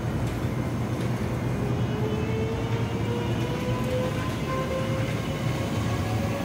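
Kintetsu 23000 series Ise-Shima Liner limited express pulling away from the platform, its traction motors whining and rising slowly in pitch as the train gathers speed, over a steady low rumble.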